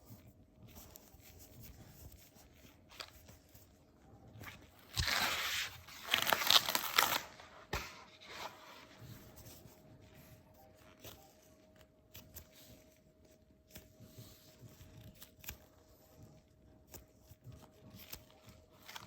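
Squishy toys being handled, with faint rustles and taps. About five seconds in comes a loud scratchy crinkling lasting roughly two and a half seconds.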